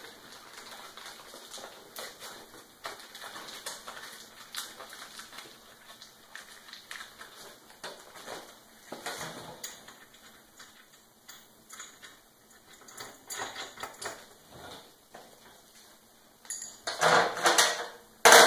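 Small metal hardware, lock nuts and washers, clicking and clinking as they are sorted out of a plastic parts bag, with the bag rustling. Near the end a louder clatter as parts are rummaged in the tray of a shop stool.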